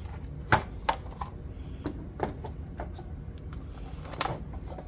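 Irregular sharp clicks and knocks from handling a plastic model train engine and its packaging, the loudest about half a second in, with a longer clatter near the end.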